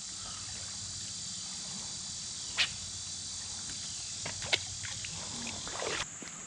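Steady high-pitched insect chorus, with a few sharp clicks, one about two and a half seconds in and another about four and a half seconds in.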